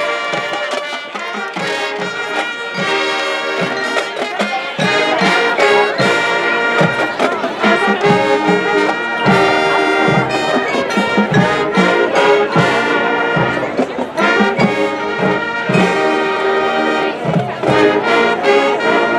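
High school marching band playing a full-band passage: the brass section carries a sustained melody over the percussion, with regular sharp drum hits throughout.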